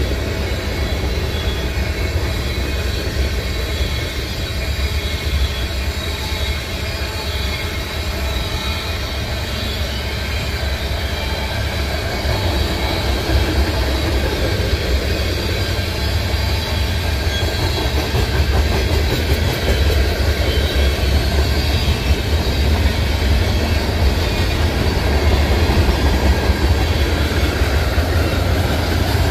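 Freight train cars rolling past at speed: a steady rumble of steel wheels on the rails, with faint high ringing tones from the wheels above it, growing a little louder partway through.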